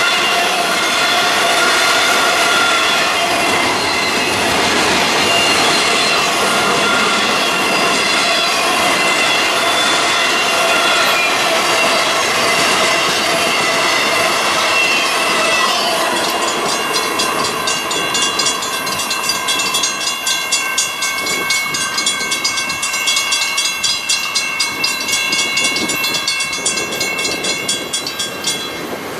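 A Union Pacific intermodal freight train rolls past with rushing wheel noise and high squealing from its wheels. After about halfway the last cars clear, and a grade-crossing warning bell rings with a steady repeating beat until it cuts off near the end.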